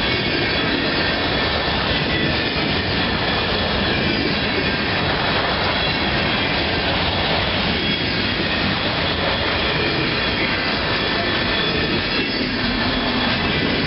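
Freight train cars, empty bulkhead flatcars among them, rolling past close by: a steady, loud rumble of steel wheels on the rails that holds unbroken.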